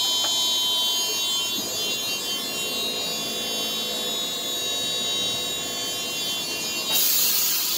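Lisbon Tram 28 streetcar running along its rails, heard from inside the car: a steady high whine of several fixed tones. A sudden loud hiss comes in near the end.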